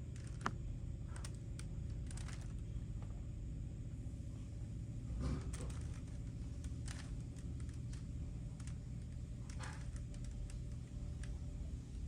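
Scattered light clicks at irregular intervals, about one every second or two, over a steady low hum.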